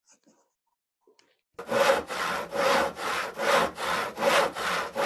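Rhythmic back-and-forth scraping strokes, about two and a half a second, alternating stronger and weaker like a push and a pull, starting abruptly about a second and a half in after a few faint handling sounds.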